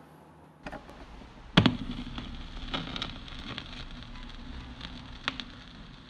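Stylus set down on a vinyl record on a record player: one sharp thump about a second and a half in, then irregular surface clicks and crackle over a low steady hum.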